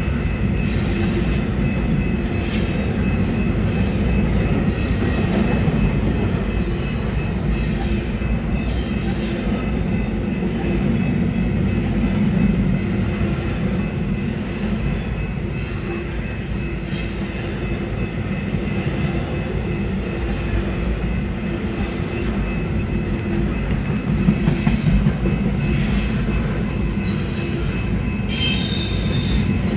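Long freight train's cars rolling past: a steady rumble of wheels on rail with brief, high-pitched wheel squeals scattered throughout.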